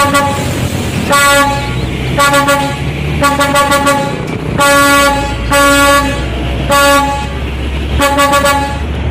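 Truck horn sounding in a string of blasts, some short and stuttering, some held for about half a second, over a low engine-like rumble that grows stronger partway through.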